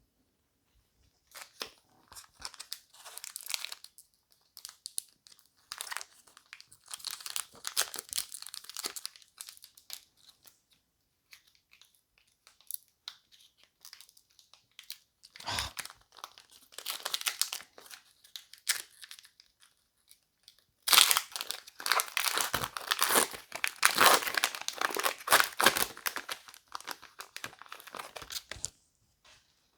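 Foil booster-pack wrapper crinkling and being torn open, in several spells of rustling with quiet gaps; the loudest and longest spell comes about two-thirds of the way through.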